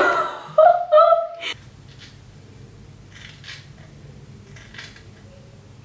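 Scissors snipping through a fringe of hair: a handful of separate short, crisp cuts about a second apart.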